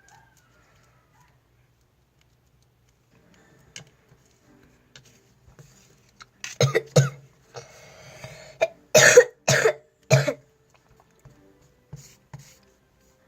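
A person coughing: two coughs a little past halfway, then three more in quick succession.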